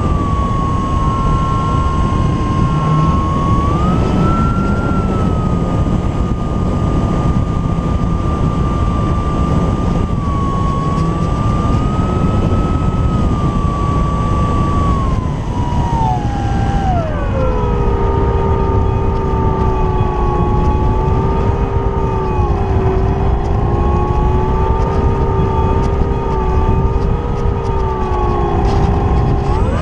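Electric motor and propeller of an E-flite Apprentice S 15e RC trainer plane whining in flight, with wind rushing over the camera mounted under the fuselage. The whine wavers, drops sharply in pitch about 17 seconds in as the throttle is pulled back, and climbs again near the end.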